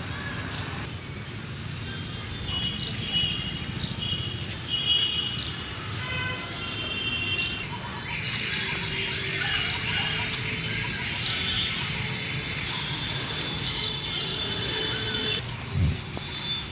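Small birds chirping and twittering, many short calls overlapping; about halfway through a denser hissing chatter joins in behind them.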